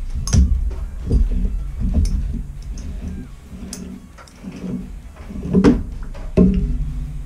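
Scattered sharp metal knocks and clicks, about six of them, as a brass Watts boiler auto-fill valve is handled and turned onto the iron pipe fitting by hand, over a steady low rumble.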